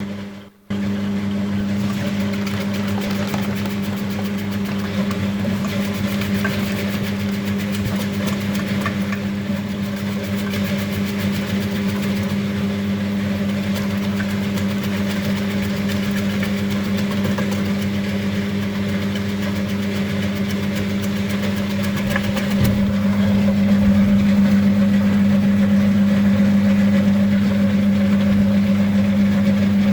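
Electric potato dicing machine running steadily, its motor giving a constant hum under a fine rapid ticking. About two-thirds of the way through there is a single knock, and the machine then runs a little louder.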